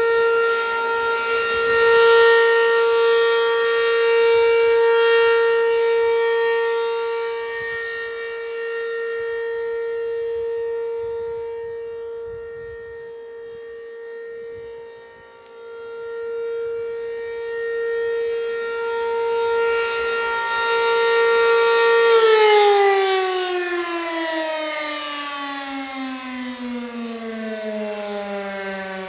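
American Signal P15 tornado siren sounding a steady wail, its loudness slowly swelling and fading. About 22 seconds in it winds down, the pitch sliding steadily lower.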